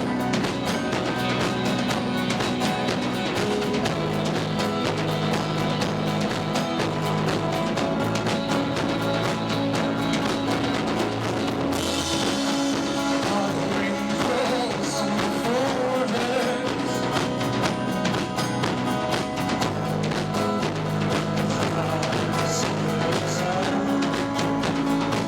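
Live rock band playing loud, with drum kit and electric guitar, in a rough, poor-quality audience recording. The sound gets brighter in the highs about halfway through.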